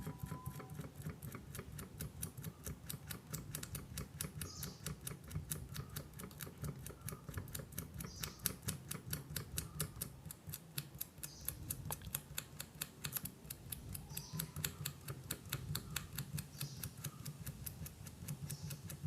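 Enamel insulation being scraped off an aluminium ceiling-fan winding wire with a blade: quick, light, regular scrapes, about four or five a second.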